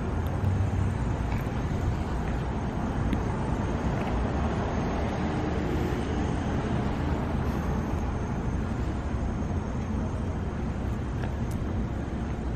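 Steady outdoor background noise: an even low rumble with a hiss above it, with no distinct events.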